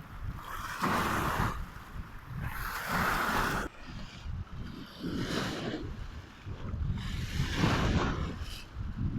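Sea water washing in swells that rise and fall about every two seconds, over a steady rumble of wind on the microphone.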